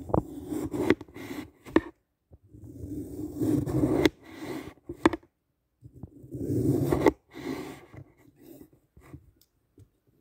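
A knife blade pushed down through a glitter-coated block of green floral foam, slicing off slabs. Each cut is a crunchy scrape a second or two long, peppered with sharp crackles, with short pauses between the cuts.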